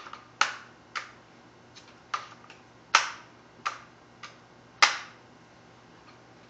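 Daisy 880 air rifle clicking and clacking as it is handled while being oiled. There are about eight sharp, irregular clicks over the first five seconds, the loudest around three and five seconds in.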